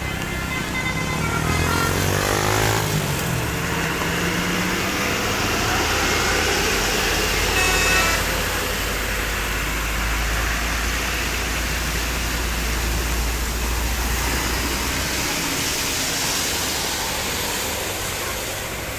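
A large bus passes with engine rumble and tyre hiss. The low rumble swells from about six seconds in and fades near the end. Brief pitched tones sound near the start, gliding in pitch, and again about eight seconds in.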